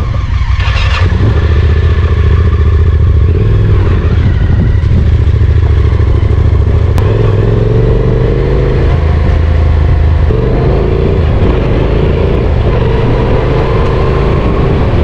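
Motorcycle being ridden on the road: a loud, steady engine drone with the pitch shifting a little as the speed changes.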